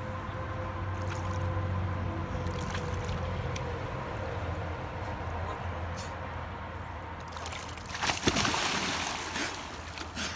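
Shallow river water flowing steadily over rocks while a person wades in, then about eight seconds in a loud splash as she drops down into the water, with water churning around her for a second or so and a few smaller splashes near the end.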